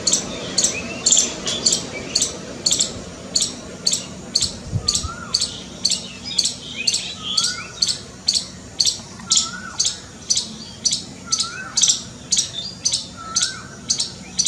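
Squirrel alarm calling when scared: sharp, high chirps repeated steadily about twice a second. A fainter rising-and-falling call recurs every two seconds or so behind them.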